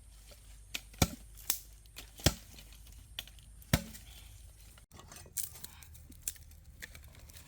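A handful of sharp, irregular knocks and snaps, a second or so apart, the loudest about one, two and four seconds in.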